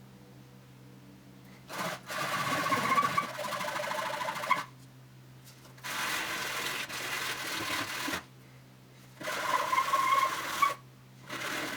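Small electric power tool working a piece of hardline watercooling tube, running in about four bursts of two to three seconds each with short pauses between them.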